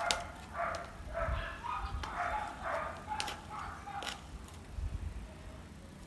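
A dog barking repeatedly, about two barks a second, for the first three seconds, then two sharp taps about a second apart, fitting a metal spoon knocking against the plastic cups as soil is spooned in.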